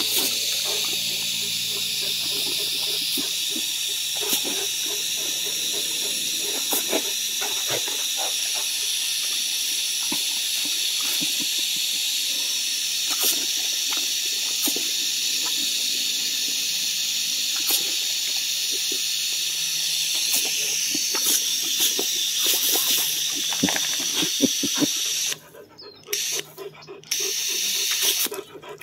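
Garden hose spray nozzle hissing steadily as a jet of water shoots out, with scattered short clicks. Near the end the spray cuts off and comes back several times in quick succession.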